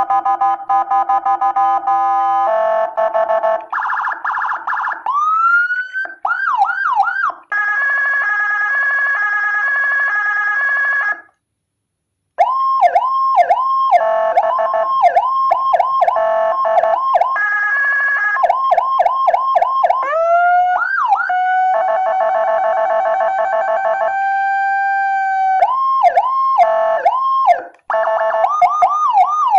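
Whelen HHS-style electronic siren module with a 200 W amplifier cycling through its siren tones. It plays fast warbles, repeated rising chirps, rising whoops and steady held tones, switching every few seconds. It cuts out for about a second near the middle and briefly again near the end.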